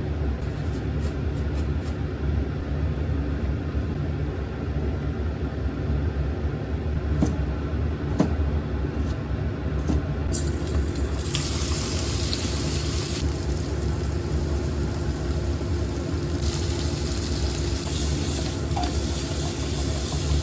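Food frying in a pan, a steady sizzle over a low rumble, with a few light clicks in the first half and a brighter, louder hiss coming in suddenly about ten seconds in.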